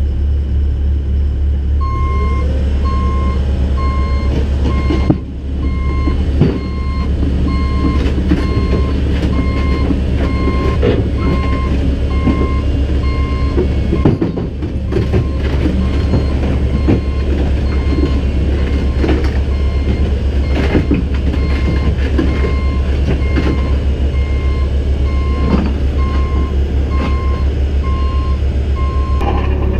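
CAT 313 excavator tracking under diesel power, its travel alarm beeping steadily from about two seconds in until just before the end, with the clank and knock of steel tracks over the engine's running.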